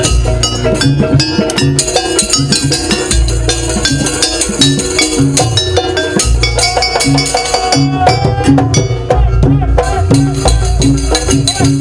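Loud live jaranan sampak music from a Javanese gamelan-type ensemble: drums and struck percussion keep a dense beat under sustained bass notes, and a pitched melody line comes in about halfway through.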